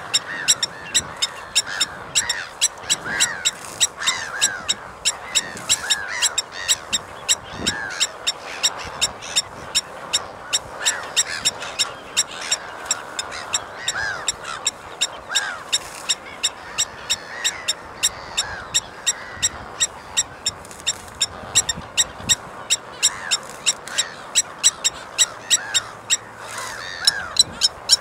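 Blacksmith lapwing calling a rapid run of sharp metallic 'tink' notes, about three a second, its alarm call that sounds like a hammer striking an anvil, with softer calls that arch in pitch.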